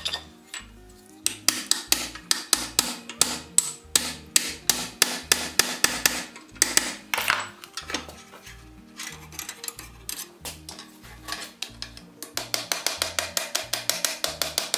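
Hand hammer striking a red-hot iron bar clamped in a vise while forging a buggy seat iron. A steady run of blows is followed by a sparser stretch, then quick, evenly spaced light blows near the end. Background music plays underneath.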